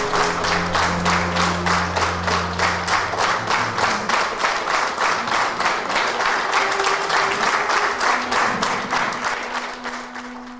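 A roomful of people applauding in unison, a rhythmic clapping of about four claps a second, with the last held notes of music under it for the first few seconds. The clapping fades out near the end.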